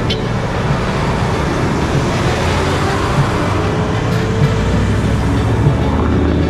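Car driving on the road: steady engine and road noise.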